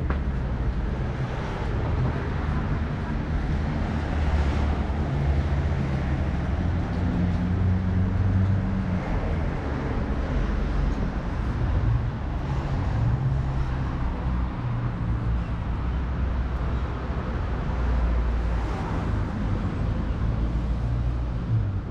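Steady low rumble of city road traffic and vehicle engines, with no single event standing out.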